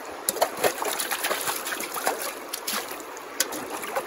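Water splashing and trickling as a dish is washed by hand: irregular short splashes over the steady rush of a river.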